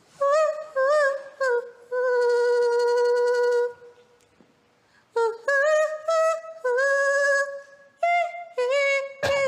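A woman singing unaccompanied: a few short notes, then a long held note, a brief pause, then another phrase of short and held notes.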